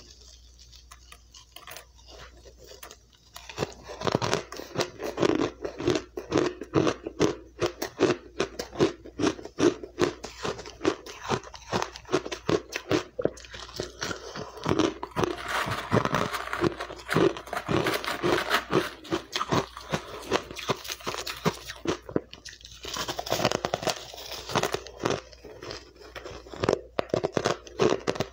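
Close-miked crunching and chewing of crushed, refrozen ice in the mouth: rapid crisp crunches, fainter for about the first three seconds, then dense and steady.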